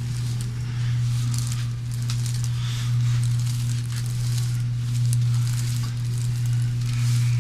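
A steady low hum throughout, swelling and fading slightly, with faint rustling and scattered crackles from the patient's body and clothing moving on a treatment table during a chiropractic stretch.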